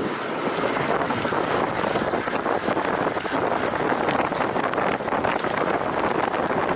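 Loud wind noise rushing over the microphone of a camera riding on a road bicycle: a steady, dense rush with no let-up.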